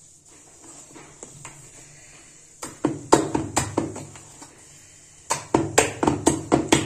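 Thick wheat-flour and semolina batter beaten by hand in a steel bowl: quick wet slaps and knocks against the bowl, in a run of several strokes about two and a half seconds in and another run near the end. The beating aerates the batter so the gulgule come out soft.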